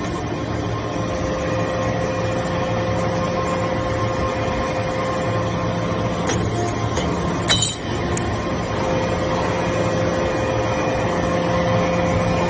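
Hydraulic sawdust briquette press running with a steady machine hum, with one sharp metallic clank about seven and a half seconds in.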